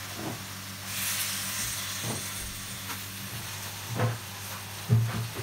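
Liquid poured into a hot wok of stir-fried vegetables, hissing and sizzling as it hits the pan; the hiss swells about a second in and then fades. A few light knocks follow near the end.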